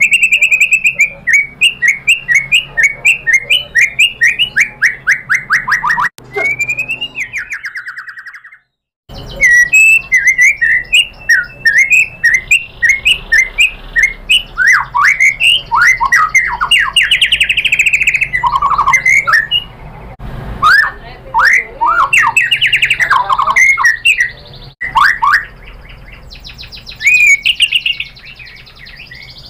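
White-rumped shama singing loudly. It opens with a fast run of sharp repeated notes, about four a second, that slowly drop in pitch. After a brief break about eight seconds in, the song goes on as varied whistled sweeps, trills and chattering phrases.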